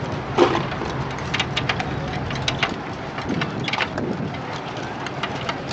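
Scattered metal clinks and knocks of tools and parts as a team bolts a Ferguson tractor back together, over steady outdoor background noise.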